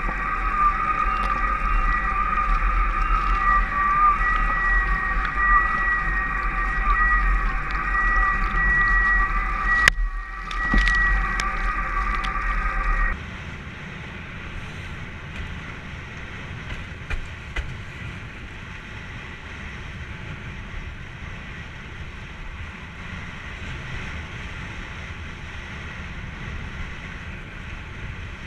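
Windsurf hydrofoil singing: two steady high whistling tones over heavy wind buffeting on the camera microphone and rushing water, with a sharp knock about ten seconds in. About thirteen seconds in the whistle cuts off abruptly, leaving quieter wind and water noise.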